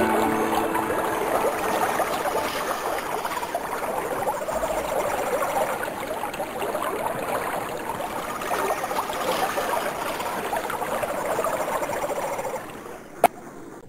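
A dense wash of running water and many chirping animal calls. It falls away near the end, followed by one sharp click.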